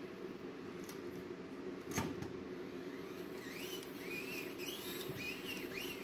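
Micro-scale SCX24 RC rock crawler's small electric motor and gears whirring steadily as it climbs rocks, with a sharp knock about two seconds in as it hits stone. From about three and a half seconds on, a run of short, squeaky whines that rise and fall in pitch.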